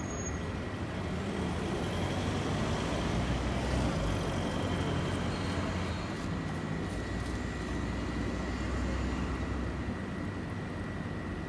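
Steady rumble of road traffic, with vehicle engine noise swelling a little and easing off again.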